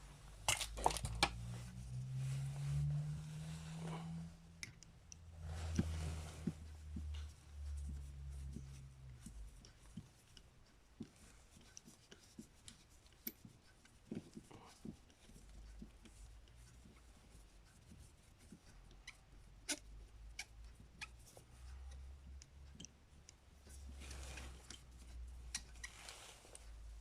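Faint clicks, taps and scrapes of a screwdriver and small metal carburetor parts being handled as a Mikuni carburetor's starter plunger is worked loose. A low drone comes and goes in the background.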